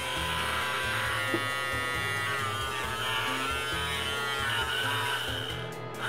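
Electric beard trimmer's small DC motor running with a steady buzz, its pitch wavering and dipping a few times. It now runs quietly and without cutting out as it is turned at different angles, since its switch contact was cleaned and its cutter shaft oiled.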